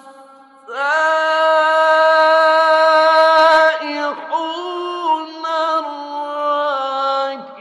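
A man's voice reciting the Quran in a melodic, drawn-out style. After a short pause it holds one loud note for about three seconds, then carries on with further long notes that waver and bend in pitch.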